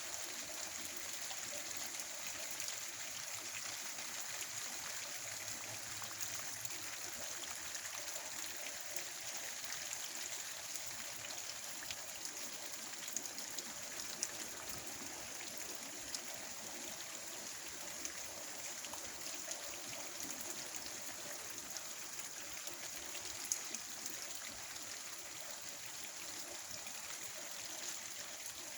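Steady rain falling, a continuous hiss with scattered sharper ticks of single drops.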